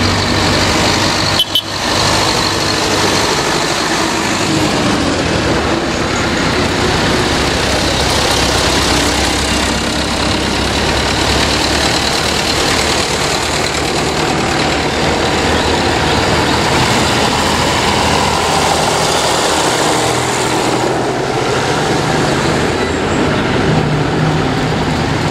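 Tractor engines running as a line of tractors drives past one after another, the engine sound steady throughout. About a second and a half in there is a brief break in the sound.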